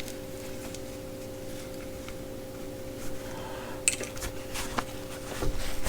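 Steady electrical hum in a small room, with a few light clicks and rustles of items being handled about four seconds in and soft low thumps near the end.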